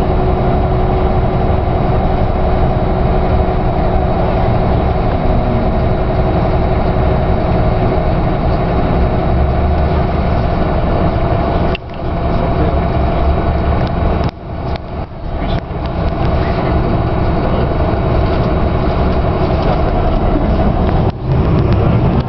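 Steady engine and road noise of a moving tour bus, with a constant hum, heard from on board. The sound briefly drops out a few times about halfway through and again near the end.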